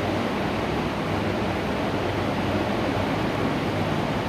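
Steady background noise: an even hiss with a low hum beneath it.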